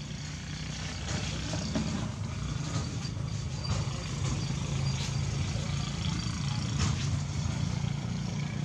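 Steady low motor hum, like an engine idling, with a few light clicks.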